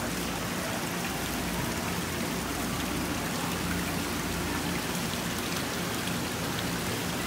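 Water pouring from pipe outlets into live seafood tanks, a steady splashing rush of water.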